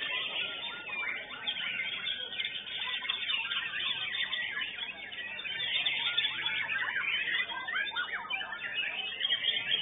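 White-rumped shama (murai batu) singing a fast, unbroken stream of varied whistles, chirps and trills.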